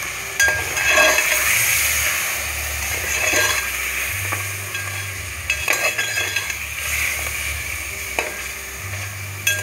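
Mutton pieces frying and sizzling in oil and spice paste in a metal pot while a slotted metal spoon stirs them. The spoon scrapes and knocks against the pot every second or two.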